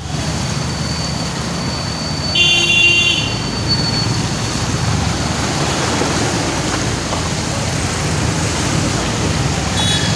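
Motor scooter running through a flooded street with steady traffic noise, and a vehicle horn honking once about two and a half seconds in.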